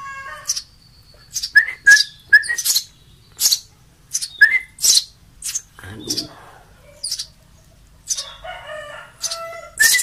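Eurasian tree sparrow chicks giving short, sharp, high-pitched begging chirps, repeated irregularly about once or twice a second, while being hand-fed; the calls crowd together near the end.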